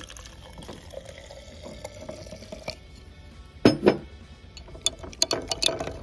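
Water poured from a plastic cup into a glass jar of lemon juice and baking soda, running steadily for a couple of seconds. Then two loud knocks, and a metal spoon clinking rapidly against the glass jar as the mixture is stirred.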